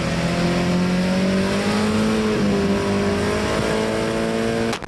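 Car engine running hard at high revs, its pitch wavering up and down a little. It drops out for a split second near the end.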